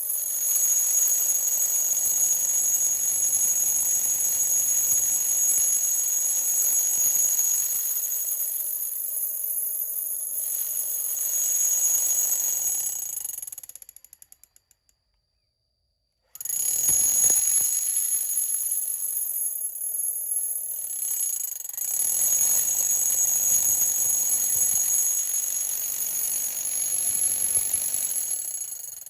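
Hilti TE 56 rotary hammer's electric motor running with a high steady whine, switched off about halfway through and winding down to silence, then started again about two seconds later and run until near the end.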